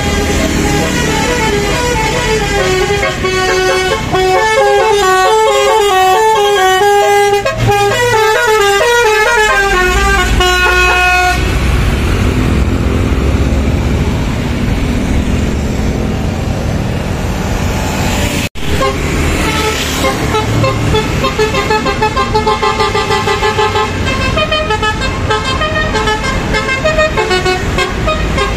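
Telolet musical air horn on a medium tour bus playing a quick melody of stepping notes, then the bus's engine running loudly as it passes. After a sudden break about two-thirds of the way through, more horn tunes play.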